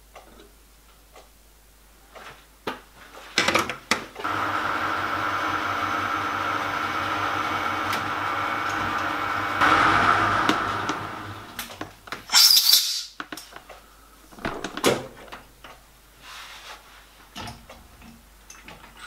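Small metal lathe switched on, its motor and spinning chuck running with a steady hum for about six seconds, then winding down as it is switched off. Light clicks of handling the brass piston and tools before and after, with a brief sharp clatter just after it stops.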